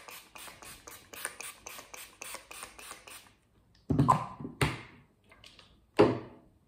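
Setting spray pumped rapidly in short misting hisses, about four or five a second, stopping after about three seconds. Near four and six seconds in come a few louder sudden thumps.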